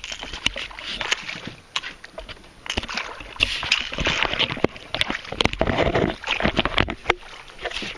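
Irregular knocks and rubbing close to the microphone, mixed with water sloshing, heaviest from about three to seven seconds in. This is handling noise from the camera being moved on a small boat.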